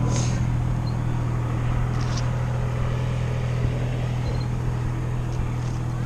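A steady low engine hum with an even wash of outdoor background noise.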